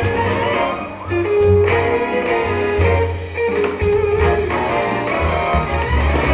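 Music with a prominent guitar over a bass line.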